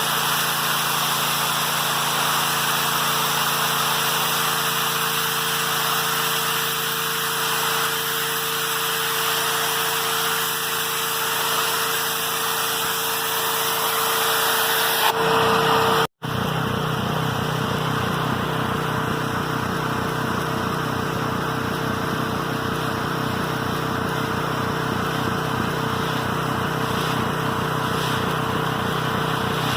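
Electric driveway-cleaning machinery, a pressure washer and wet-vac, running steadily with a constant hum. The sound drops out for a split second about halfway through, and afterwards a fast low pulsing runs under the noise.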